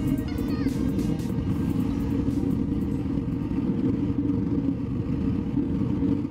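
Forced-air propane burner running steadily: a constant low roar of the flame with the hum of its 12-volt air blower. Background music fades out over the first second or so.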